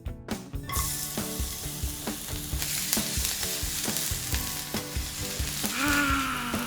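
Hamburger patties sizzling on a grill: a frying hiss that starts abruptly about a second in and keeps going. Faint background music with a steady beat plays underneath, and a brief wavering tone sounds near the end.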